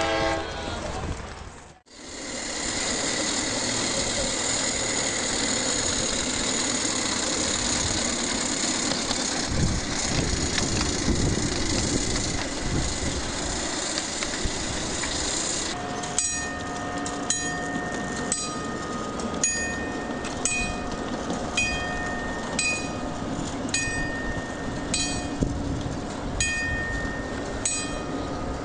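Ride-on miniature railway train running along the track. First there is a steady hiss, then from about halfway through come regular metallic clicks of the wheels over the rail joints, roughly one a second.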